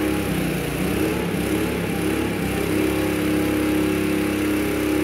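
Engine of a hydraulic boat lift running steadily, with a humming tone coming in a little after halfway.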